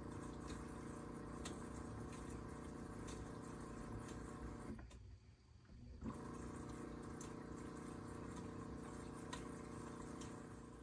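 LG front-loading washer's TurboWash circulation pump humming as it sprays water into the drum, with splashing and small droplet ticks. It runs for about five seconds, cuts off for about a second, then starts up again.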